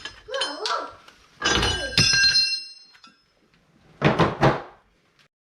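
Hammer blows on the steel front hub assembly of a 2011 Chevy Impala, beating the stuck hub off: two ringing metal strikes about a second and a half in, then a quick group of three strikes about four seconds in.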